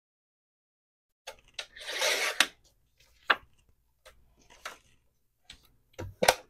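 Tim Holtz Tonic Studios rotary paper trimmer cutting a sheet of scrapbook paper: a short rasping swipe of the cutting head along the rail about two seconds in, with clicks and knocks of the trimmer and paper being handled around it and a heavier thump near the end as the trimmer is moved.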